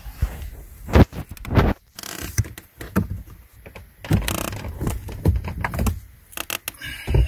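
Handling noises of an OBD-II scanner's cable and plug being worked under a car's dashboard and into the diagnostic connector: irregular knocks, scrapes and rustles against the plastic trim.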